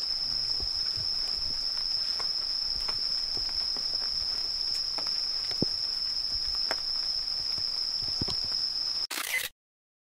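A chorus of night insects, crickets, singing in one steady high-pitched drone, with a few faint clicks. The chorus cuts off abruptly about nine seconds in, followed by a brief burst of noise.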